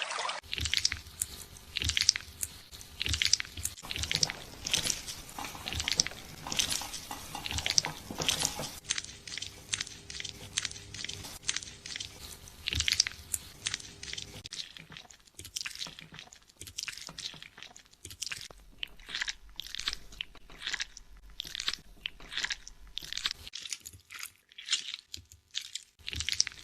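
Fingers scrubbing shampoo-lathered hair and scalp close to the microphone: a run of short rubbing strokes, about two to three a second, coming closer together toward the end.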